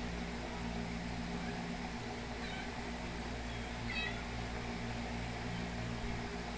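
Kittens mewing: a faint, short, high-pitched mew about two and a half seconds in and a clearer one about four seconds in, over a steady low hum.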